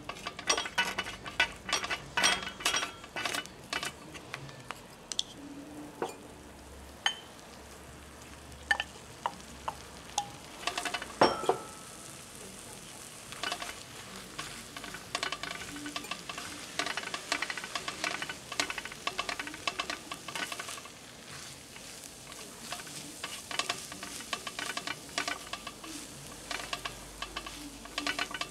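A spatula scraping and tapping on a round tabletop griddle pan as fried rice is stir-fried, over a steady sizzle. The clicks come in quick runs, thin out in the middle with one louder clack about eleven seconds in, then pick up again into a steady run of scraping.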